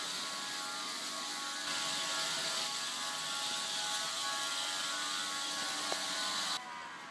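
Heljan O gauge class 47 model locomotive running round the track, its motor and gears whirring steadily with a high hiss. Near the end the sound drops suddenly and the motor's whine falls in pitch and fades as it runs down.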